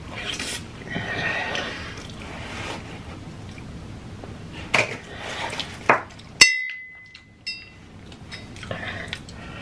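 Close-miked mouth sounds of a man chewing a large mouthful of spaghetti. A little past the middle comes one sharp glassy clink that rings for about a second, and near the end water is drunk from a glass mug.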